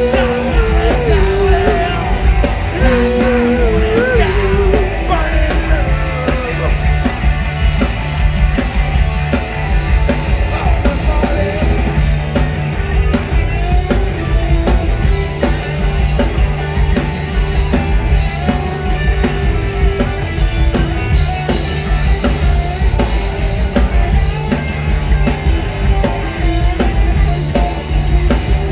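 Live punk-rock band performance with electric guitar, bass and drums. A singer's voice wavers over the band for the first few seconds, then the band plays on.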